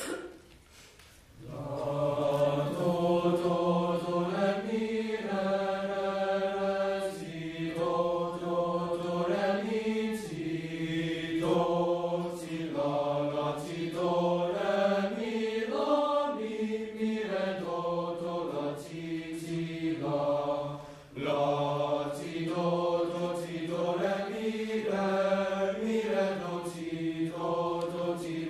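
Teenage boys' choir singing in a low, men's-voice range, several parts moving together in long held chords. The singing begins about a second and a half in, breaks off briefly about two-thirds of the way through, then carries on.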